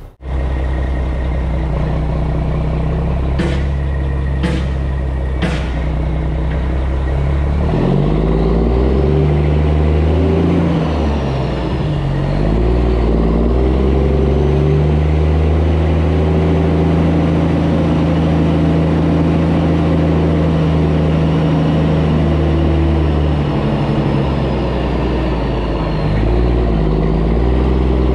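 Mack truck's diesel engine pulling away under load, hauling an excavator on its trailer. The engine note drops and climbs again several times as it works up through the gears. Three sharp clicks come about a second apart, around four seconds in.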